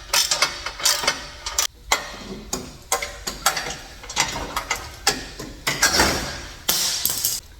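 Hand ratchet wrench clicking in short, irregular runs of strokes.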